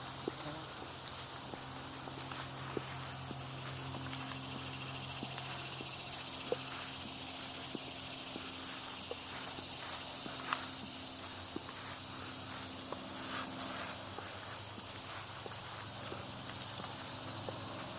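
Steady high-pitched insect chorus, unbroken throughout, with faint scattered footsteps.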